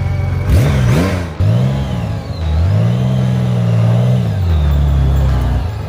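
Honda Gold Wing trike's flat-six engine idling, then revved: a sharp blip about half a second in, a second shorter one, then held at higher revs for about two seconds before settling back to a low steady run near the end.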